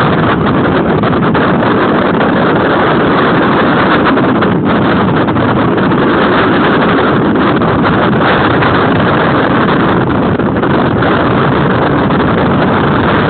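Steady, loud rush of wind on the microphone and water noise aboard a sailboat sailing close-hauled.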